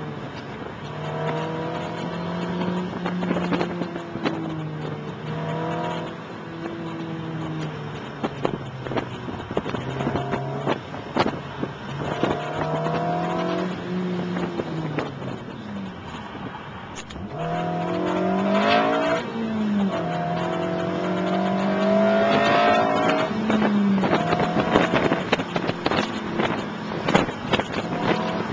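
Honda Civic engine, heard from inside the cabin, driven hard on a timed run. Its pitch rises and falls again and again as it accelerates and lifts, with the biggest climb and drop about two-thirds of the way through. Scattered clicks and rattles sound over it.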